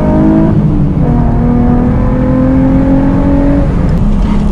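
Nissan 350Z's 3.5-litre V6 under acceleration, heard from inside the cabin. The engine note climbs steadily and drops at a gear change about half a second in. It then climbs again through the next gear and falls back to a steady lower note near the end.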